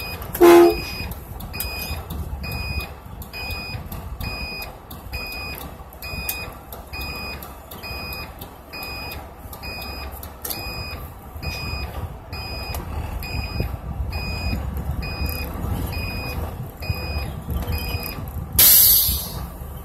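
Bus moving with engine and road rumble underneath, while an electronic warning beeper sounds a two-tone beep about once a second; the beeping stops near the end. Near the end there is a short loud hiss of air, like an air-brake release, and about half a second in there is a brief loud pitched blip.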